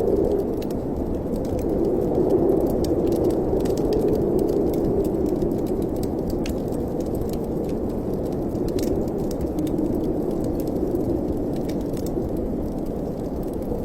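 Wind moaning in a fireplace chimney: a hollow, low howl that swells and sinks slowly in pitch, with scattered small crackling clicks over it.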